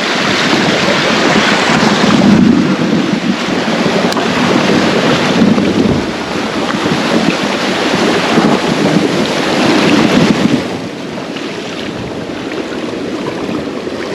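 Water rushing over a small river rapid, a loud, continuous rush that swells and eases every couple of seconds and drops somewhat about ten and a half seconds in.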